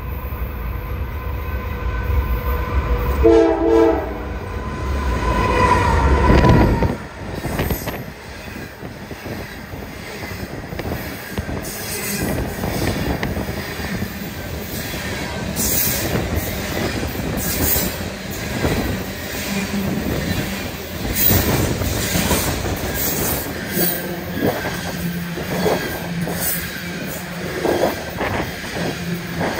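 A Norfolk Southern diesel locomotive heading a coal train passes close by. Its horn sounds briefly about three seconds in, and its heavy engine rumble cuts off about seven seconds in as it goes past. The coal cars then roll by with rumbling, clanking wheels and repeated high wheel squeals.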